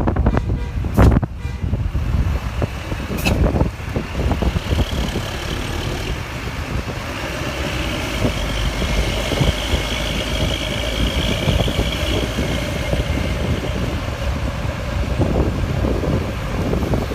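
Heavy road vehicle passing, its engine and tyres making a steady whine through the middle that eases off later, with wind buffeting the microphone in the first few seconds.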